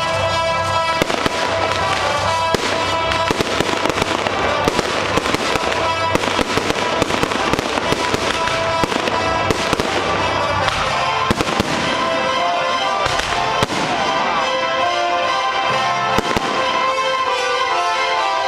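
Aerial fireworks going off in quick succession, many sharp bangs and crackles, over music with long held tones.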